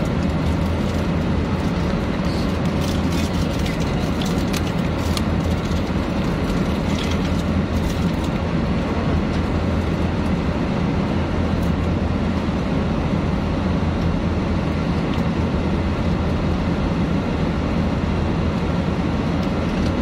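Steady drone of an airliner passenger cabin in flight: engine and airflow noise with a strong low hum. A few light clicks come in the first half.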